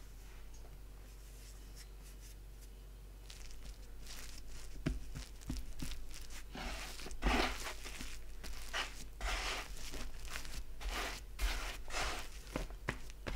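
Hands kneading and pressing a soft rock-cake dough on a floured wooden board: irregular squishing, tearing rustles with a few light knocks on the board, starting about three seconds in.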